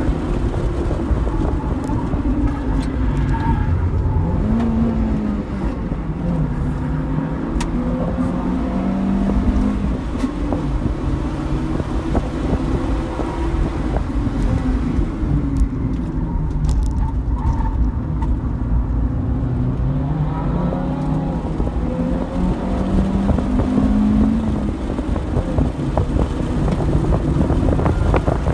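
2002 Acura RSX's four-cylinder engine heard from inside the cabin at track pace, its pitch climbing and falling several times as the car accelerates and slows, over a steady low rumble.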